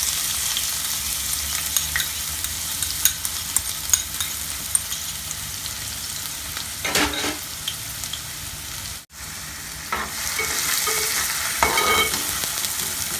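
Chopped onion sizzling in hot oil with cumin and nigella seeds, stirred in the pan with a spoon that clicks against the metal now and then. The sizzle is a steady hiss and briefly cuts out about nine seconds in.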